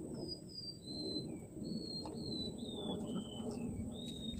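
A bird singing a run of short, clear whistled notes, each about a third of a second, stepping down in pitch from high to lower. The run starts again a little lower just before the end. A steady low background rumble and a thin, steady high tone run underneath.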